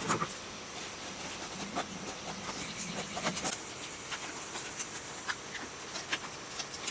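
Faint scattered clicks and rustles of stiff insulating paper being handled and pushed into the slots of a generator stator, over a steady high hiss.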